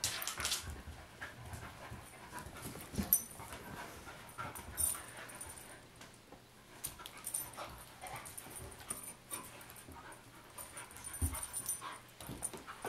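Two dogs, a chocolate Labrador and a small white dog, play-wrestling: panting with scattered short rustles and clicks, and a soft thump about three seconds in and another near the end.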